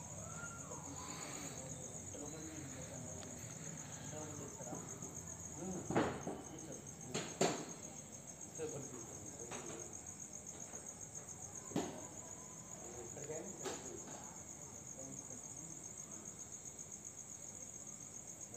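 Insects chirping in a steady, high, pulsing trill, with faint voices in the background. A few sharp clicks cut through, the loudest about six and seven seconds in.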